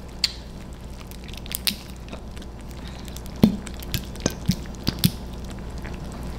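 A squeeze bottle of Samyang Buldak 2x spicy sauce being opened, squeezed and capped. A few short clicks and taps come from the cap and bottle, the sharpest about halfway through, with soft squelches of sauce squirting out, over a faint steady low hum.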